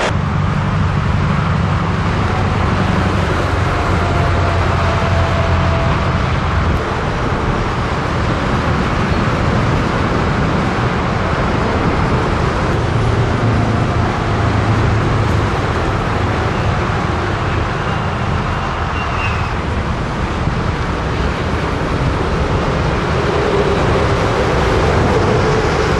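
Scania V8 diesel truck under way on the road: a steady low engine drone over tyre and road noise, the engine note swelling and easing a little as it drives.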